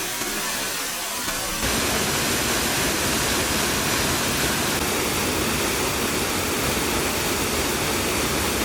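Steady rushing of a waterfall. About a second and a half in, it turns abruptly louder and fuller, from a thin hiss to a full rush of falling water.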